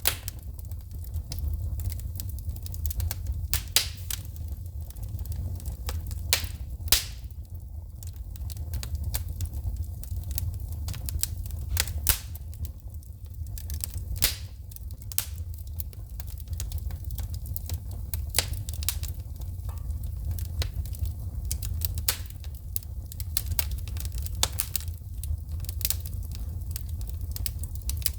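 Burning wood logs in a fireplace crackling and popping, with irregular sharp snaps of shooting sparks, several a second and some much louder than the rest, over a steady low rumble.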